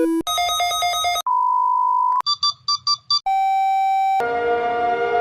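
Emergency alert tones spliced one after another, about a second each: the tail of a two-tone signal, a pulsing tone, a steady high tone, five short beeps, a steady lower tone, then a tone with rising sweeps.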